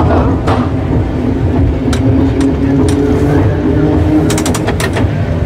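Heritage tram SSB 24 running along street track: a low rumble of wheels and gearing under a motor whine that rises a little and then falls. Clicks and rattles sound throughout, with a quick run of clicks near the end.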